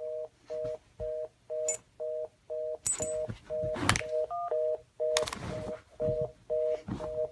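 Telephone busy signal: a two-note beep repeating about twice a second. A few loud clicks or knocks come over it in the middle.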